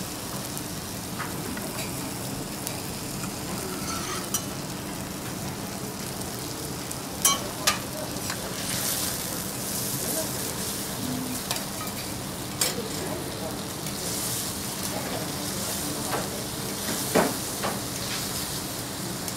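Pork and chicken sizzling steadily on a hot steel teppanyaki griddle, with a few sharp clicks of metal spatula, fork and knife against the steel plate, the loudest near the end.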